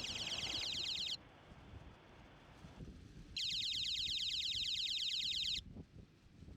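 Float-switch high tide alarm's electronic buzzer sounding a high-pitched, rapidly pulsing warble in two bursts. The first burst cuts off about a second in, and the second runs for about two seconds past the middle.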